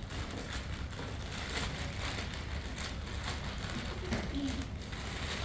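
Rustling and light knocks from a cardboard courier package being handled, over a steady low hum.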